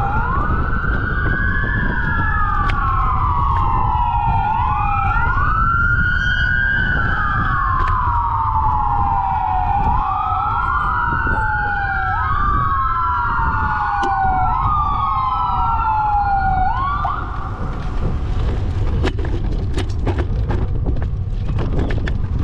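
An emergency vehicle siren wailing, each cycle rising quickly and then falling slowly, about every two to three seconds, over heavy wind rumble on the microphone. The siren cuts out about seventeen seconds in, leaving the wind rumble and a few knocks.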